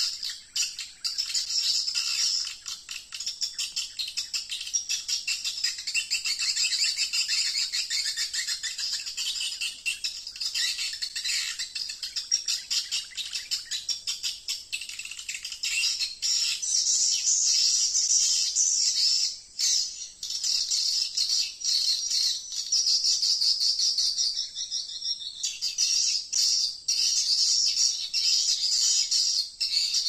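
Swiftlets calling: a dense, unbroken high twittering of many rapid chirps.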